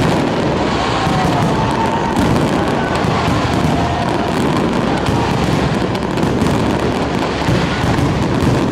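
Fireworks going off in a dense, continuous barrage of many small crackling bursts, with no single blast standing out.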